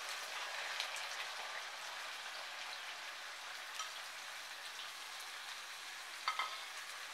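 Sliced onions frying in hot oil in a kadai: a steady sizzling hiss, with a few light clicks, the clearest near the end.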